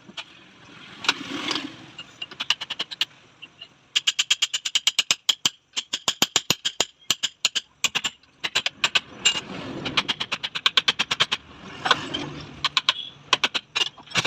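Metal hand tools working on a motorcycle rear shock absorber: several runs of rapid metallic clicks, about ten a second, broken by short bouts of scraping.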